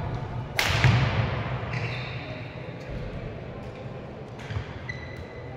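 Badminton being played in a sports hall: a loud sharp racket hit about half a second in that rings on in the hall for a second or so, then short high squeaks of court shoes on the floor and a few lighter taps.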